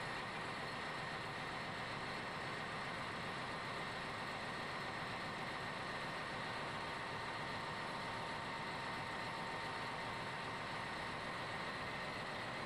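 Steady machinery hum and hiss with a faint high whine running through it, unchanging throughout.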